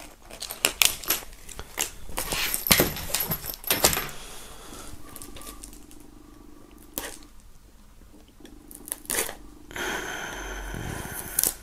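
Hands handling a folding knife and plastic CD cases: a dense run of sharp clicks and taps in the first four seconds as a tag is cut off a bag, then sparser clicks and a light rustle as the knife works at the shrink wrap on a CD case.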